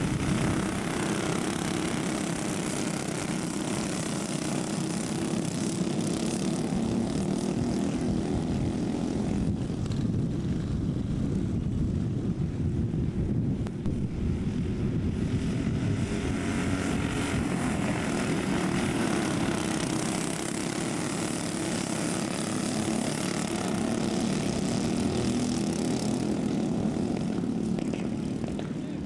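Engines of several dirt racing karts running at speed in a pack, growing louder and softer as the karts come past and move away.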